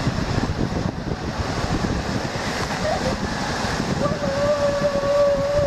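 Rushing water and wind buffeting the microphone as riders slide down an open water slide. About four seconds in, a rider lets out one long held yell.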